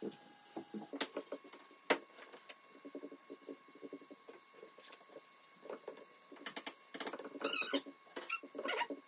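Cloth rubbing finish into an oak end grain cutting board in short, scratchy back-and-forth strokes, louder and busier near the end. A couple of sharp clicks come about one and two seconds in.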